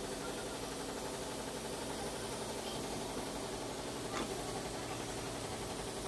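An engine running steadily in the background, with a single light click of metal parts about four seconds in.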